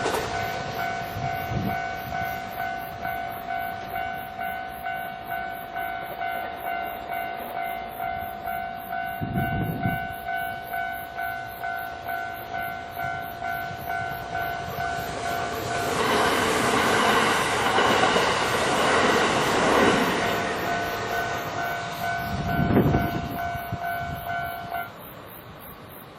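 A Japanese level-crossing warning bell rings a steady, repeated two-tone ding. A train runs through the crossing about 16 seconds in for some four seconds, with a few low thuds along the way, and the bell stops near the end.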